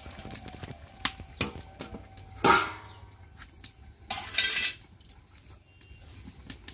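Metal cooking pot and lid clattering: a few light clicks, then one loud ringing metal clang about two and a half seconds in as the lid is set on, and a short scraping rasp a little later.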